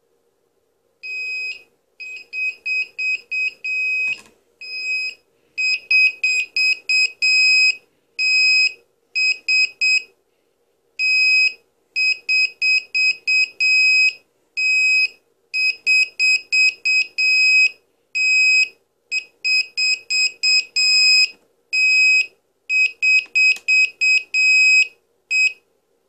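Small lost-model alarm buzzer on an RC model, switched on from the transmitter, beeping loudly in short, high beeps that come in irregular runs of several at a time. A single knock sounds about four seconds in.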